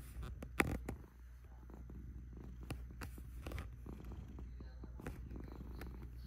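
Scottish Fold cat purring steadily close up, a low continuous rumble. A few clicks and rustles come over it, the sharpest just over half a second in.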